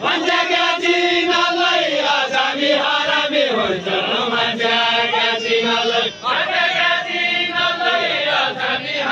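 Voices singing a Deuda folk song in a chant-like style, with long held notes that glide between pitches; a new sung phrase starts about six seconds in.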